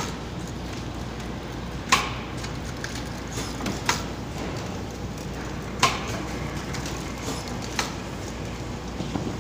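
DPP-160 blister packing machine running: a sharp clack about every two seconds as its stations stroke through each cycle, over a steady low machine hum.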